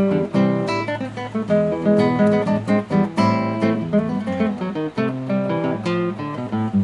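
Music played on strummed and plucked acoustic guitars, a quick run of changing notes over a strummed accompaniment.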